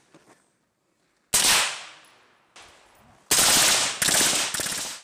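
M4 carbine gunfire: a single shot about a second in that rings out and fades, then a quick string of shots from about three seconds in that cuts off abruptly at the end.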